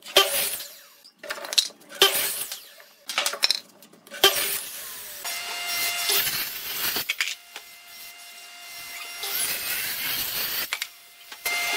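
Woodworking tools on wood: for about four seconds there are irregular short scraping strokes. After that a small power tool runs in spells of a few seconds each, with a faint steady whine.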